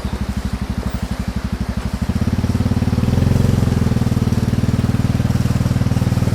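ATV engine running under way, a low, rapidly pulsing drone that gets louder and heavier about two seconds in and then holds steady.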